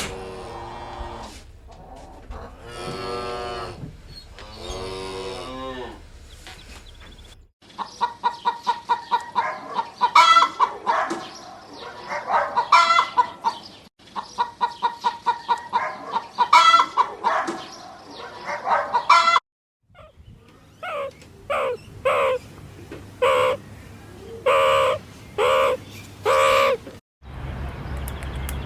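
A cow mooing, then chickens clucking in quick runs of short calls, followed after a break by a row of separate short bird calls.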